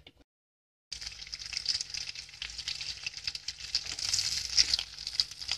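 Jackfruit seed vadas frying in hot oil in a pan: a dense crackling sizzle with fine pops that starts suddenly about a second in and swells a little about four seconds in.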